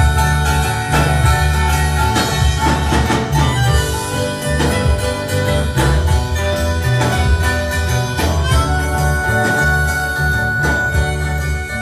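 A live band playing: acoustic guitars strummed over a steady bass line.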